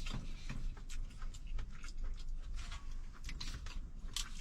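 Irregular light clicks and rustles, a few small ticks each second, over a faint low hum.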